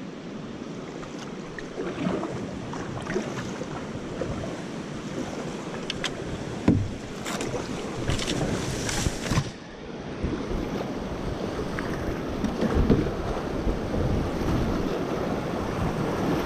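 Kayak paddling on a river: paddle strokes splashing and running water throughout. Leafy branches brush and crackle past in the middle, and the rushing of a riffle grows louder toward the end.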